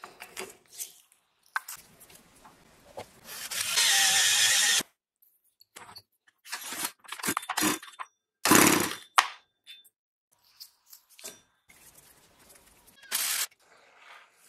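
Power drill running for about a second and a half, then in two shorter bursts later on. Light clicks and knocks come from metal engine parts being handled.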